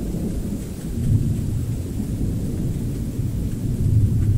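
Thunder rumbling low and continuously from a lightning storm, swelling about a second in and again near the end, with rain falling.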